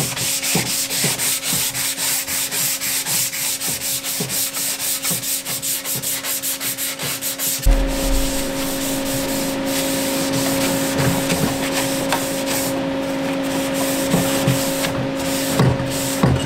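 Sandpaper rubbed by hand in quick back-and-forth strokes, about three a second, over the fins and tail cone of a large model rocket. After about eight seconds the strokes become less regular.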